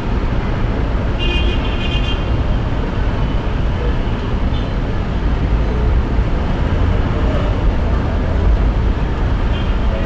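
City street traffic: a steady, dense rumble of passing motor vehicles, with a brief high-pitched tone about a second in.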